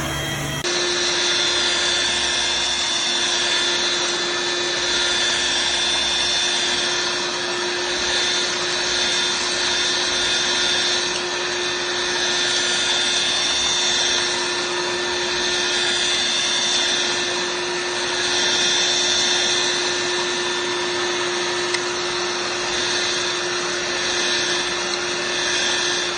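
Dirt Devil Vibe corded stick vacuum running steadily: a constant motor whine over rushing air, its loudness swelling and easing every few seconds.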